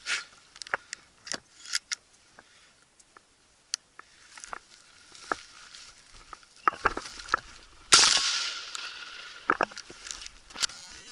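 Footsteps crunching through dry grass and brush, with a sudden louder rustling rush about eight seconds in that fades over a second or two.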